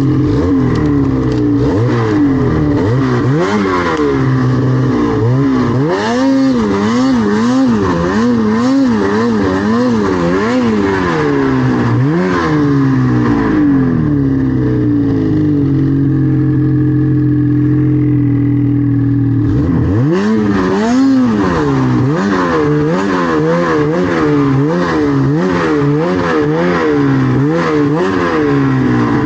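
Snowmobile engine revving up and down over and over as the throttle is worked, its pitch rising and falling every second or so. About halfway through it holds a steadier pitch for several seconds before the revving picks up again.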